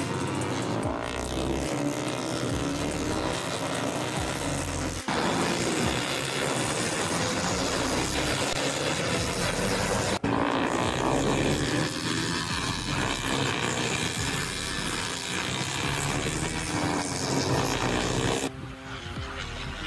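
Racing motorcycles going past at speed, the engine note sliding up and down in pitch as each bike passes. The sound breaks off abruptly and starts again twice, about five and ten seconds in.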